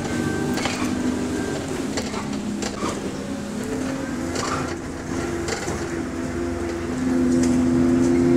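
Bus engine cooling fan running with a steady hum, heard inside the moving bus, along with scattered interior rattles. The hum grows louder about seven seconds in.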